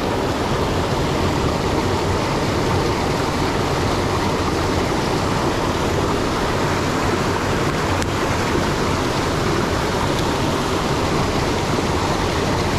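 River water rushing steadily over and between boulders in a small rapid.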